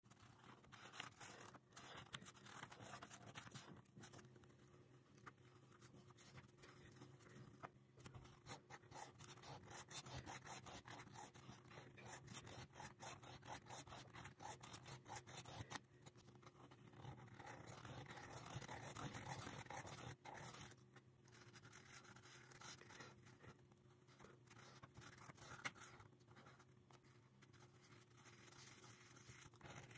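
Felt-tip marker scratching on paper while a plastic Spirograph gear wheel is rolled around inside its toothed ring, its teeth giving faint, rapid clicking.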